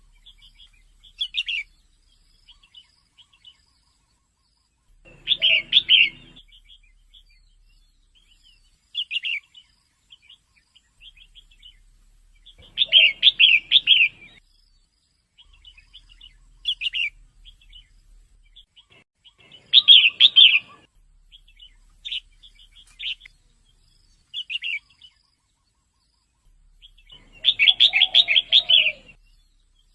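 Female red-whiskered bulbul calling: short clusters of quick, chirpy notes repeated every few seconds, with a longer run near the end.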